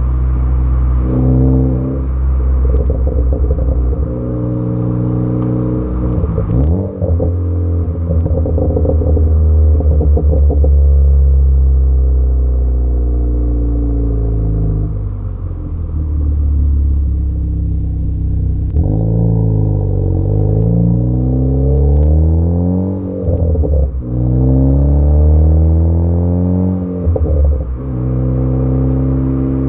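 Tuned Ford Focus ST's turbocharged engine idling, then revved several times, the pitch rising and falling with each rev. The exhaust gives sharp pops and crackles as the revs drop off.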